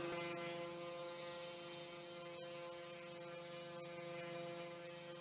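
CNC router spindle motor running steadily with a constant whine and a high hiss while its bit mills a groove into a wooden board.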